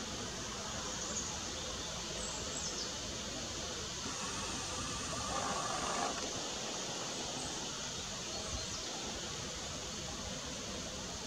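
Steady outdoor background hiss with a few faint, short, high chirps.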